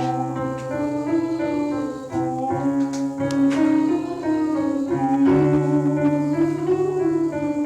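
A choir sings a vowel warm-up exercise with piano accompaniment: sustained chords that step from one to the next.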